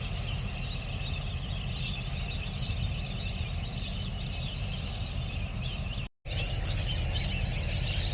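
Birds chirping over a steady outdoor background with a low rumble. The sound drops out completely for a moment about six seconds in, then the chirping carries on.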